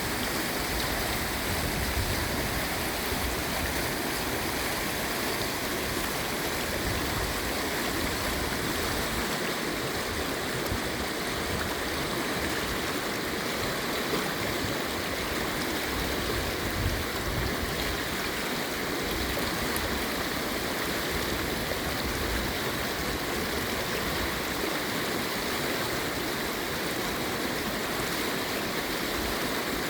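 Mountain creek water rushing and splashing over rocks, heard close up as a steady, even rush.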